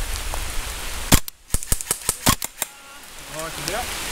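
Airsoft gun firing a quick string of single shots, about seven sharp cracks in a second and a half beginning about a second in, with a couple more near the end. Rain hisses underneath before the shots start.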